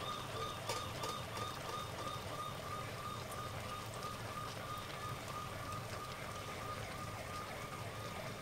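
Soup bubbling and crackling at a simmer in a clay pot. A faint pulsing tone keeps time behind it, about three pips a second, and stops near the end.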